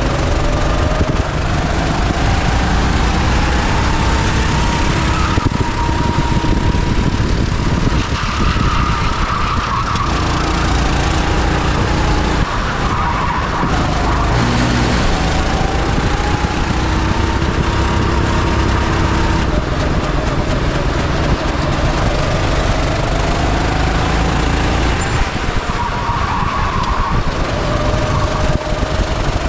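Go-kart engine running hard on track, its pitch rising repeatedly as it accelerates and falling as it slows, over a steady noisy rumble.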